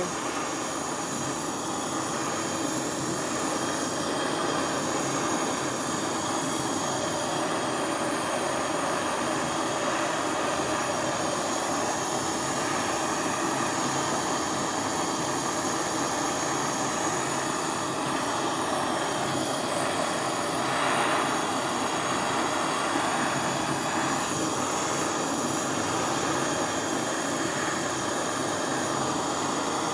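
Gas soldering torch flame burning with a steady rushing hiss, heating a large silver piece towards soldering temperature; it swells slightly about two-thirds of the way through.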